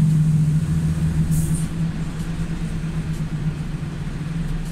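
Heavy truck's diesel engine running steadily at low speed with a low, even drone, easing slightly near the end.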